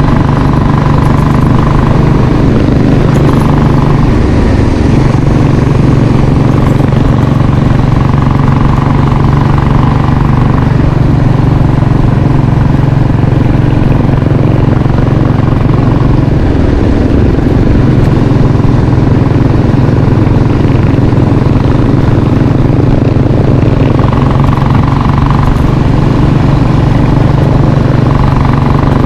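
Royal Enfield Classic 500's single-cylinder engine running steadily under way, heard from the bike itself. Its note shifts briefly about four seconds in and again about seventeen seconds in.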